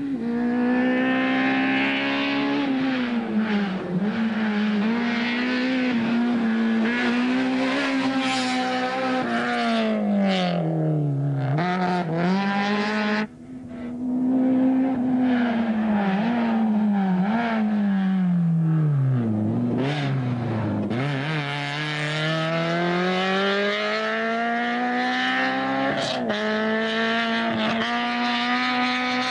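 Suzuki Swift GTI rally car's four-cylinder engine driven hard on a tarmac stage, the note climbing through the gears and falling away each time it lifts or brakes for a corner. The sound breaks off briefly about 13 seconds in, then picks up again.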